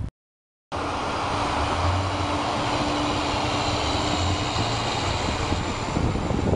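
A vehicle running in a snowstorm, a steady drone with a low hum and a faint steady tone that stops partway through, mixed with wind noise. It starts after a short moment of dead silence.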